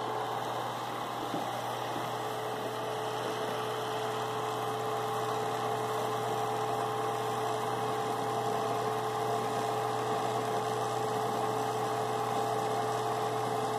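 Bell & Howell 253 AX 8mm projector's electric motor running steadily with its fan, gears and drive belt turning, a steady hum with a few constant tones. The mechanism is running empty, with no film threaded, on its first run after a power-cord replacement.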